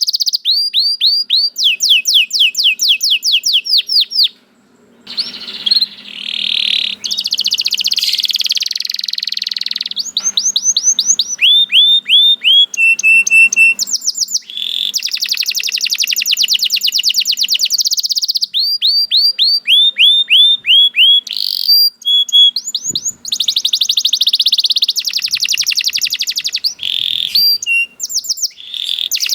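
Domestic canary singing a long, continuous song of fast repeated trills and rolls, runs of quick downward-sweeping notes alternating with buzzy rapid phrases, with a brief pause about five seconds in.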